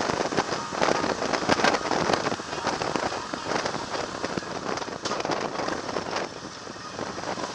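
Wind rushing and buffeting over a motorcycle-mounted camera's microphone at highway speed: a loud, noisy rush full of short crackles, easing a little near the end.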